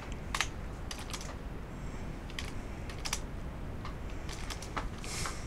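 Typing on a computer keyboard: irregular keystroke clicks, a few in quick succession, then short pauses.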